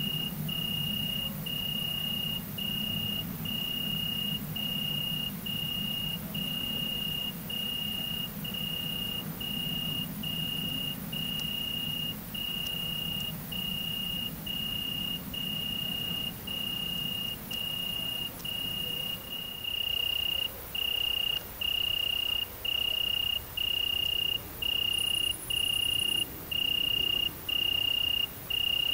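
Cricket singing: a clear, high ringing note in a steady rhythm of short pulses, about one and a half a second. A low hum sits underneath until about two-thirds of the way through.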